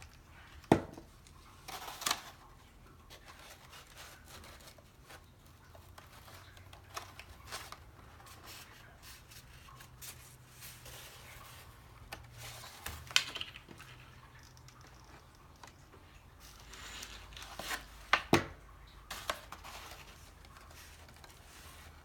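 Paper petals being handled and pressed into place on a paper rose: quiet rustling and crinkling, with a few sharp clicks and taps scattered through.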